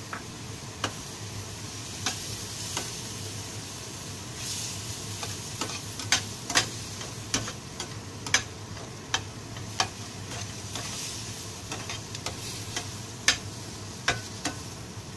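A metal spatula stirring flour into frying mushrooms and onions in a metal frying pan: irregular sharp scrapes and knocks of metal on metal, the loudest near the end, over a light sizzle.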